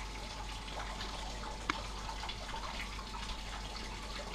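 Paintbrush dabbing and brushing a thick, wet caustic-soda and xanthan-gum stripper gel onto painted sheet metal: soft wet ticks and smears, with one sharper tick a little under two seconds in.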